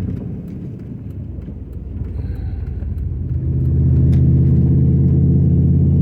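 Vehicle engine and road noise heard from inside the cabin: a low rumble that grows louder about three seconds in and settles into a steady drone as the engine pulls.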